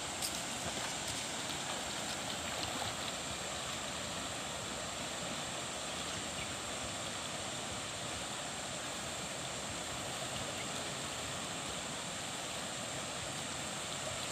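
Shallow, rocky river flowing over stones: a steady, even rush of water.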